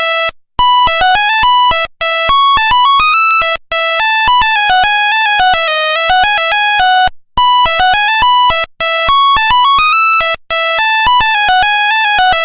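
Nokia 1100 ringtone: a single-line melody of short, buzzy electronic beeps, one note at a time. The phrase breaks off briefly every few seconds and repeats about every seven seconds.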